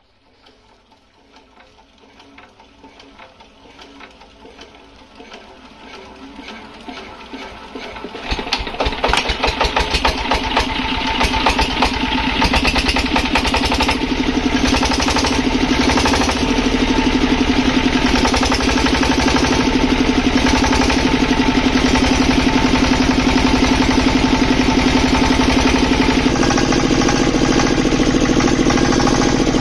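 Field Marshal single-cylinder stationary diesel engine coming up to speed after starting. Its firing beats quicken and grow louder over the first eight seconds or so, then settle into a steady, rhythmic run.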